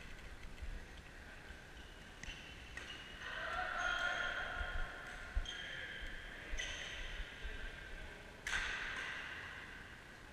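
Badminton rackets striking a shuttlecock several times, each hit a sharp knock followed by a ringing tone that echoes in the large sports hall.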